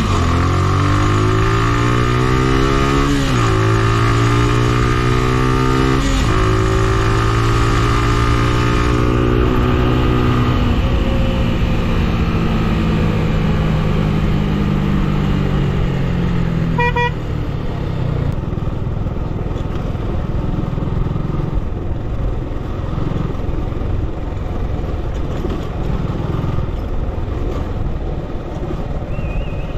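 A road vehicle's engine revving up through two gear changes, then dropping in pitch as the vehicle slows. A short horn toot comes a little past halfway, and the engine then runs lower and steadier.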